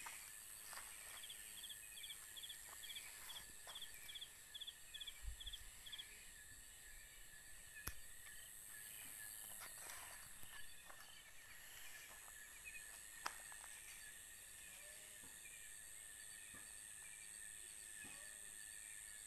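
Faint night chorus of crickets: a steady high-pitched trilling, with one insect chirping in a regular pulse about two to three times a second for the first few seconds. A few scattered clicks are heard.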